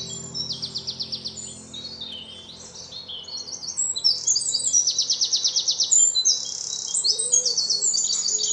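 Songbirds singing: high chirps and fast trills overlapping, the loudest trill about four seconds in.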